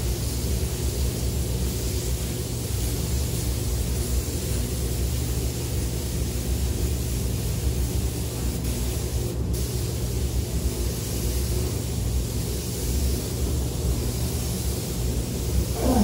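Steady hiss of a gravity-feed compressed-air spray gun spraying glass coating onto a car's paintwork, over a steady low rumble. A brief sharper hiss comes about nine seconds in.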